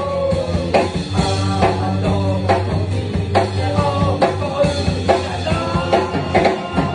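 Live rock band playing: a singer's voice over electric guitar, bass and drum kit at a steady beat.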